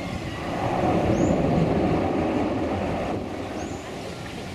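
ATR 72-600 turboprop's engines on the runway: a broad rumbling roar that swells, peaks about a second and a half in and fades away after about three seconds. A few short high bird chirps sound over it.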